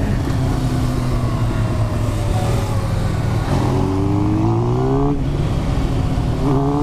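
Motorcycle engine running under way over steady wind noise. It revs up about halfway through, breaks off at a gear change, then begins climbing again near the end.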